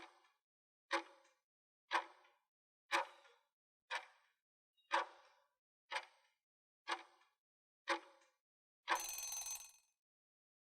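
Countdown-timer sound effect: nine sharp ticks about a second apart, then a short ringing alarm burst about nine seconds in, marking the end of the countdown.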